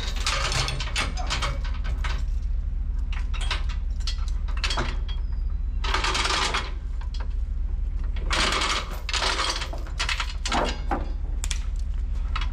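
An engine running steadily under repeated metallic clicking and rattling, with two longer noisy scrapes or rushes about six and eight and a half seconds in, as heavy equipment is loaded and secured on a trailer.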